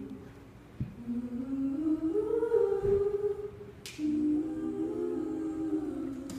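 Several women's voices humming and singing long held notes in harmony, with no clear words, the line rising slowly through the middle and then settling; little or no guitar is heard.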